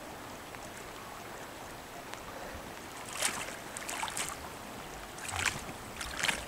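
Steady rush of flowing river water, with a few short splashes in the shallows about three, four, five and six seconds in.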